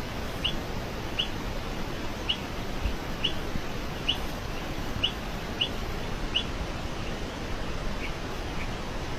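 A bird calling in short, sharp chirps, about one a second, fading to a couple of fainter chirps near the end, over steady outdoor background noise.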